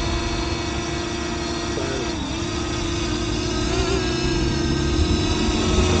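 Parrot Anafi quadcopter's propellers buzzing in a steady pitched hum as it flies. The pitch dips briefly about two seconds in, then comes back up.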